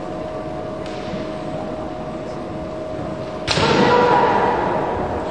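A kendo clash: about three and a half seconds in, a sudden loud strike or stamp together with a fencer's high shouted kiai, which rings out and fades over about a second in the hall.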